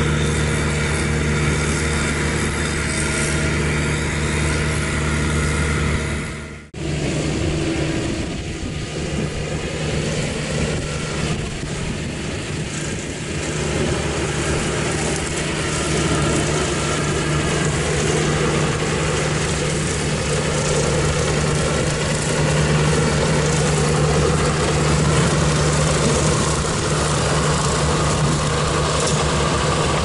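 Heavy diesel engines of beet-harvesting machinery running steadily: first the Agrifac self-propelled beet harvester, then, after an abrupt cut about seven seconds in, the straight-piped John Deere 6820 tractor's six-cylinder diesel pulling its trailer alongside the harvester. The tractor's engine gets louder from about sixteen seconds in as it draws close.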